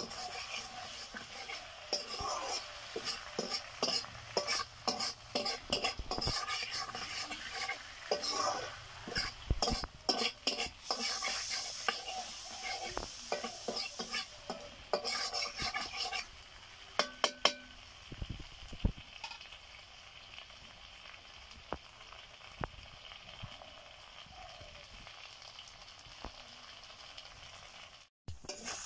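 Wooden spatula scraping and stirring chicken masala in a black iron kadai while the chicken fries and sizzles. The stirring comes as quick scrapes and knocks against the pan, then stops a little past halfway, leaving a steady, quieter sizzle.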